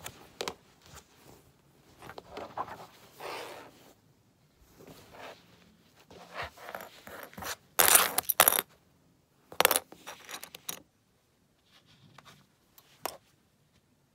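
Handling noise: irregular rustling, scraping and knocks as knitted cotton towels are moved about on a tabletop and the camera is shifted close to them. The loudest sharp bursts come a little past halfway, with short quiet gaps in between.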